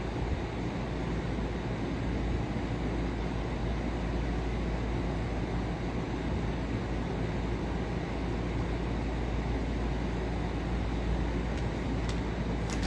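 Steady low rumble and hiss of background noise with a faint low hum, unchanging throughout.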